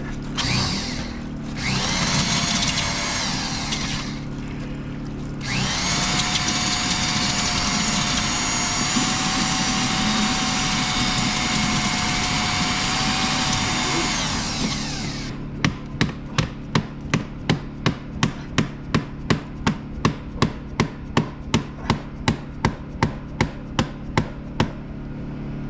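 Angle grinder beveling the end of PVC sewer pipe: a short run, then a long steady high whine, with the pitch dipping slightly partway as it bites. It is followed by sharp rhythmic strokes, about three a second, over a steady engine hum.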